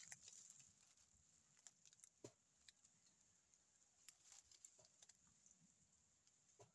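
Near silence: faint, scattered crackles and clicks of teeth gnawing and tearing at tree bark, over a faint steady high hiss.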